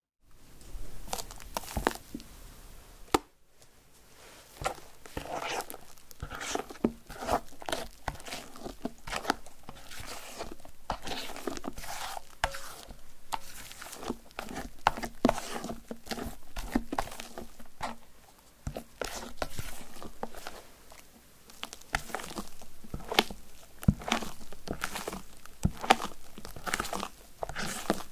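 Silicone spatula folding stiff meringue into whipped egg-yolk batter in a glass bowl: a run of irregular scraping, squishing strokes of foam against the bowl, with a brief pause about three seconds in.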